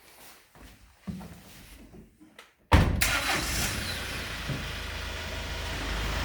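A few faint knocks, then almost three seconds in an engine starts with a sudden loud burst and settles into a steady idle.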